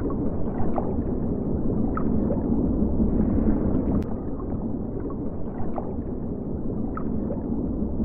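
Muffled underwater ambience: a steady low rumble of moving water, with a few faint short clicks scattered through it.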